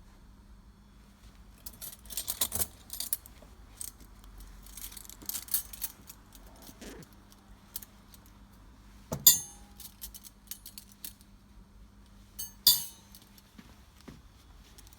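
Metal cutlery clinking and jingling as dessert forks are handled and polished, with scattered light chinks and two sharp, ringing clinks about nine and twelve and a half seconds in.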